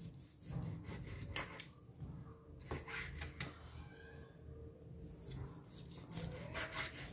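Kitchen knife slicing raw lean pork leg on a wooden cutting board: a few faint sawing strokes of the blade through the meat and onto the wood, at uneven intervals.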